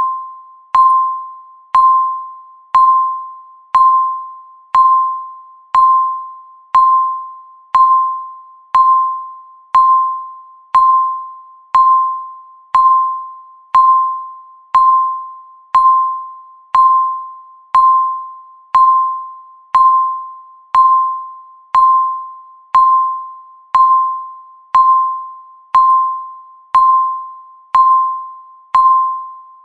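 Countdown timer ticking once a second: each tick is a sharp click with a ringing tone that fades quickly.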